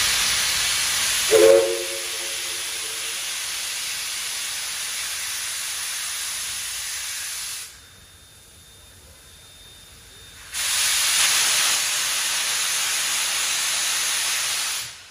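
NSWGR 59 class steam locomotive 5917 venting steam from its cylinder drain cocks in two long, loud hisses, with a gap of about three seconds between them. A short toot of the steam whistle sounds about a second in.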